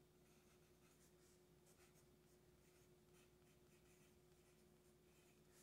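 Faint scratching of a No. 2 graphite pencil on paper, writing out letters in short, irregular strokes, over a faint steady hum.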